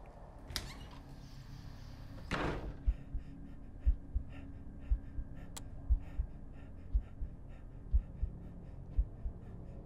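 A sudden slam-like bang a little over two seconds in, then a low heartbeat sound effect: paired 'lub-dub' thumps about once a second.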